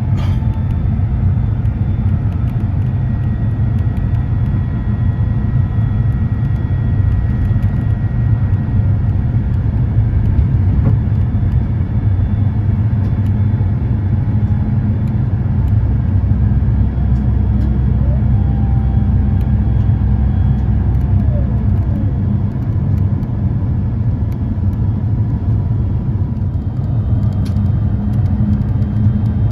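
Steady low rumble of cabin noise inside an Airbus A350-900 with Rolls-Royce Trent XWB engines, the engines and airflow heard from a seat beside the engine.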